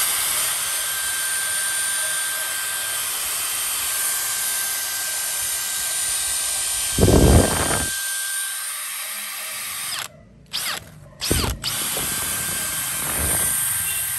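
Makita XPH12 18V brushless cordless hammer driver-drill running free with no load: a steady whine from the motor and gearbox. About seven seconds in a brief loud low rumble cuts in. A little after ten seconds the drill stops, gives two short bursts, then runs steadily again.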